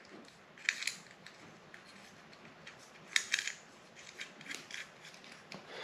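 Small metal parts of a MingYang W300L baitcasting reel clicking and tapping as they are fitted back together by hand: a sharp click about a second in, a quick cluster of clicks around three seconds, then a few fainter ticks.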